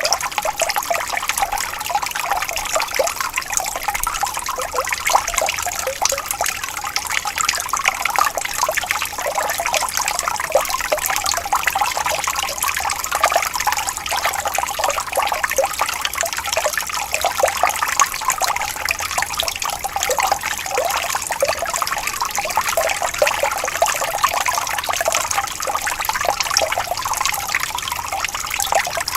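Water trickling and bubbling steadily over stones in a small stream: a dense, even babble of small splashes.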